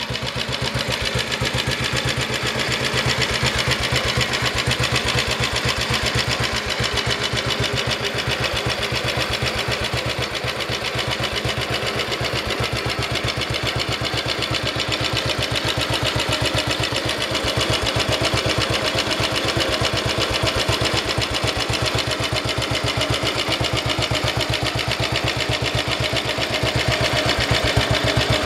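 Matchless G3LS's 350 cc single-cylinder four-stroke engine idling steadily, with an even beat of firing pulses.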